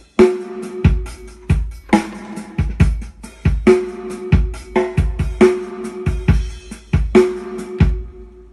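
Korg Pa1x arranger keyboard playing a style: a drum-kit beat with kick and snare under a held tone.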